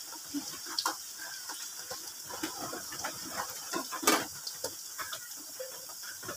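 Chopped onion frying in hot oil in an iron karahi: a light, steady sizzle with many small crackles and one sharper pop about four seconds in, as the onion browns.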